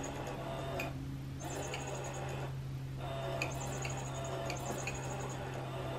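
Catty Whack electronic cat toy running: a steady motor hum under a repeating pattern of ticks and high chirps. The ticks and chirps break off briefly about a second in and again around two and a half seconds in.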